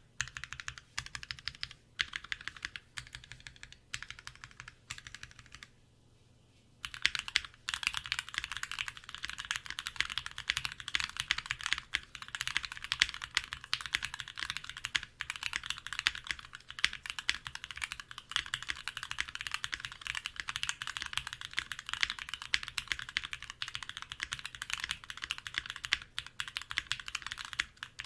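Typing on a mechanical keyboard fitted with lubed Gateron Hippo linear switches with UHMWPE stems, giving a deep, muted keystroke sound. Short bursts of keystrokes with brief pauses at first, then steady fast typing from about seven seconds in.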